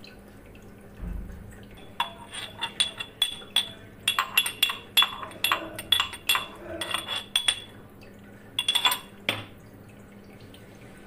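A metal utensil clinking against a small steel saucepan in a quick run of sharp ringing clinks, several a second, starting about two seconds in, with a second short run near the end.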